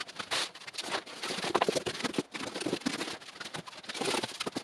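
Cardboard packaging being rummaged through by hand: an irregular run of rustles, crinkles and small clicks, with a few light knocks.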